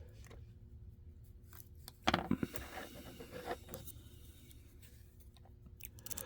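Lock pick scraping and tapping against the pin stacks inside an ABUS E60 pin-tumbler padlock, with faint scattered clicks and a short burst of scraping about two seconds in.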